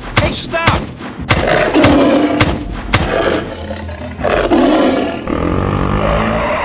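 A run of sharp heavy thuds, roughly two a second, then two long low growls.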